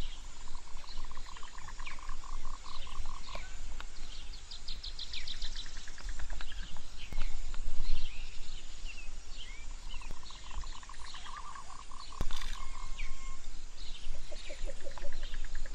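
Forest birds calling: one bird repeats a fast run of identical mid-pitched notes twice, among scattered short, higher chirps. Beneath them is a steady low rumble from the mountain bike rolling over the dirt trail.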